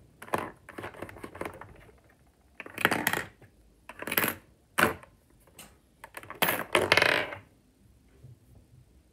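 Plastic Lego parts clacking and scraping as the candy machine's coin slider is pushed and pulled by hand, in a string of short clacks and scrapes. About two-thirds in comes a longer, louder rattle as a steel marble runs out through the mechanism.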